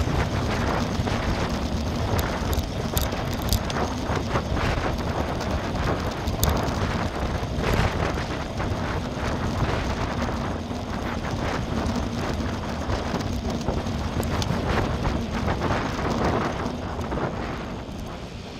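Wind buffeting a bike-mounted camera's microphone, with tyre and frame rattle from riding on a paved path: a steady rushing rumble with small ticks and clicks, easing off near the end as the bike slows.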